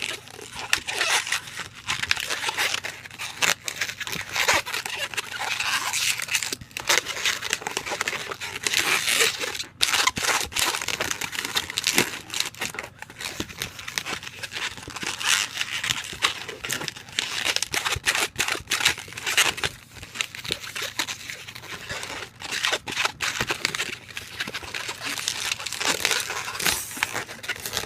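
Latex twisting balloons being twisted and handled while a balloon dog is made: a continuous scratchy rubbing of latex, broken by many small sharp clicks.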